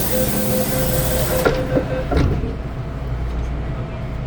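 MTR M-Train electric multiple unit: a loud air hiss cuts off about a second and a half in, followed by a few sharp knocks. After that the train settles into a steady low rumble with a faint steady whine.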